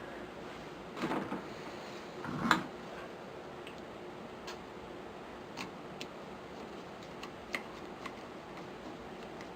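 Metal parts of a Savage Model 64 rifle handled while the trigger assembly is fitted back in: a short scrape about a second in, a sharp knock at about two and a half seconds, then a few light, scattered clicks.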